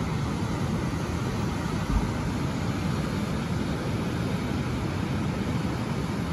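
Steady rushing roar of the Saint Lawrence River's rapids and standing surf wave, with a brief low thump about two seconds in.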